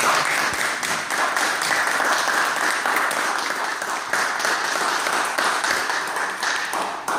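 Small audience applauding, a steady patter of many hands clapping that begins to fade near the end.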